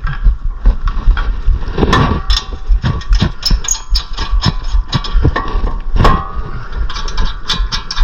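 Irregular metallic clicks and knocks of hand tools and brake parts being handled and fitted, over a steady low rumble.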